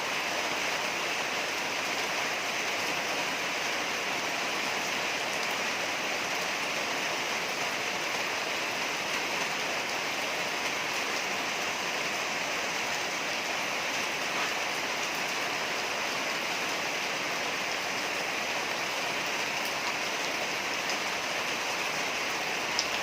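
Heavy rain falling in a steady, even hiss, with a faint click near the end.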